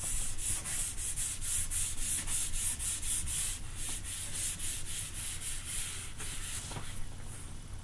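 Whiteboard eraser scrubbed back and forth across a whiteboard, a rhythmic rubbing hiss of about three strokes a second that dies away near the end.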